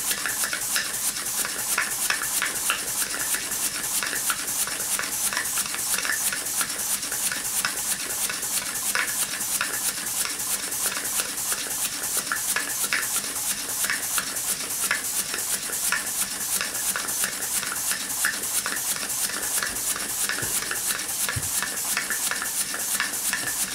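Model single-cylinder steam engine running steadily on live steam, running nicely: a rapid, even beat of hissing exhaust puffs.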